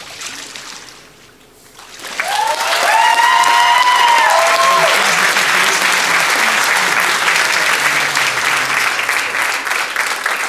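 Congregation applauding and cheering. It breaks out about two seconds in, with a few high shouted whoops over the first few seconds, and the clapping carries on, easing slightly near the end.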